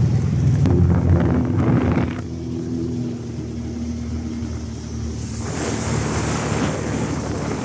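Williams 280 inflatable tender under way: its engine runs with a steady hum, over the rush of water along the hull and wind on the microphone. The rush is louder for the first two seconds and swells again from about five seconds in.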